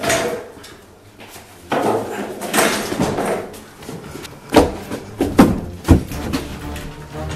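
Shuffling, rustling movement, then a quick run of sharp thumps about four and a half seconds in, the loudest two near the six-second mark.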